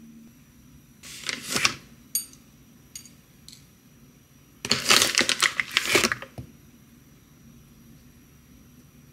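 Breakfast being plated on a ceramic plate: a few light, sharp clicks and clinks of a spoon and food pieces on the plate, and two crackling rustles, the second louder and lasting over a second about five seconds in.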